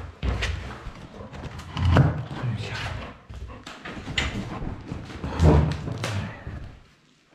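Irregular thumps, knocks and fabric rustling as a padded dog-bed cushion is handled on a wooden bed frame, with two heavier thuds about two seconds and five and a half seconds in. The sound cuts out briefly near the end.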